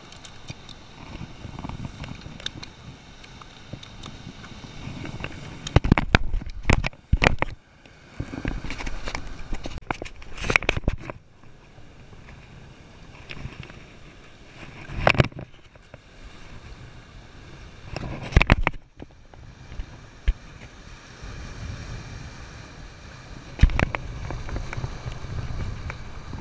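Wind buffeting the microphone and surf washing against jetty rocks, broken by several loud knocks and handling bumps: a quick cluster about six seconds in, then single ones spread through the rest.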